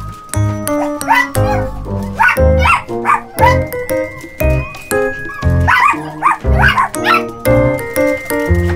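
Chihuahuas yapping in short bursts of two or three barks, again and again, over background music with steady, even notes.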